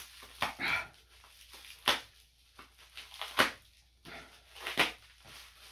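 Parcel packaging being torn open and unwrapped by hand: rustling, with three sharp snaps about a second and a half apart.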